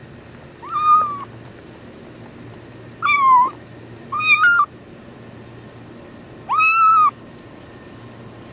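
Tuxedo kitten meowing as it is picked up: four loud, high-pitched cries of about half a second each, a second or more apart, its protest at being handled.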